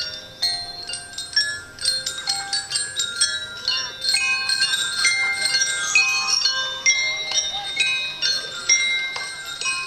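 Many bright metallic chime tones struck in quick succession at many different pitches, overlapping and each ringing briefly.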